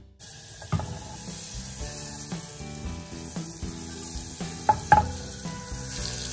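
Butter sizzling as it melts in a hot nonstick saucepan, a steady frying hiss with a couple of sharp pops about five seconds in.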